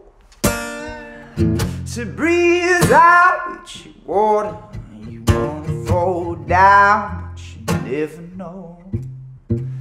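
Acoustic guitar strummed while a singer holds long, sliding notes over it.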